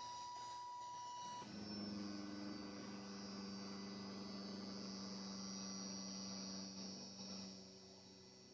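DC motors of a homemade 3D printer built from salvaged inkjet-printer mechanisms, running under closed-loop control as the print bed moves. A single steady high tone gives way about a second and a half in to a lower steady hum with a high whine above it, which fades near the end.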